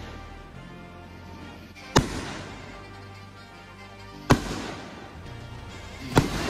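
Aerial fireworks bursting in the sky: three sharp bangs about two seconds apart, each trailing off briefly, over background music.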